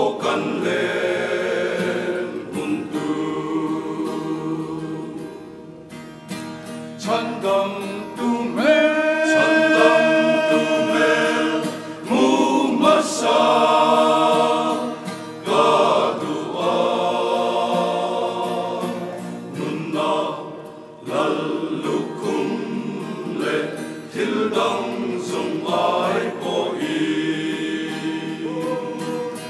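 Men's choir singing a hymn in several parts, phrase by phrase with brief breaks, accompanied by a strummed acoustic guitar.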